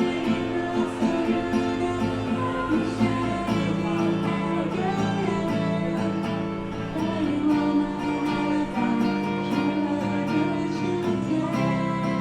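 Instrumental passage of a pop song, led by strummed acoustic guitar over a steady accompaniment.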